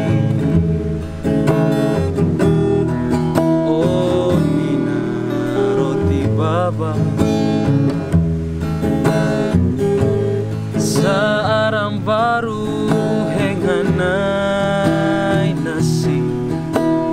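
Two acoustic guitars, a steel-string and a nylon-string classical, strummed and picked together, with a man's voice singing a slow, wavering melody at times.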